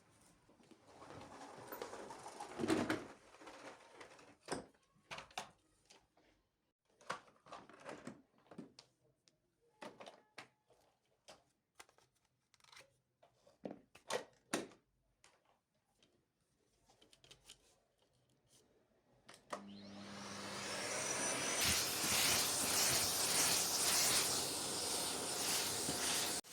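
Scattered light clicks and knocks of objects being handled, then a vacuum cleaner switched on near the end, its motor spinning up over a couple of seconds and running steadily.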